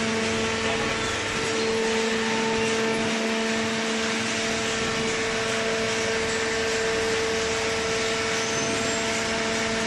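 Paper baler machine running: a steady mechanical hum with a constant tone under an even, noisy hiss.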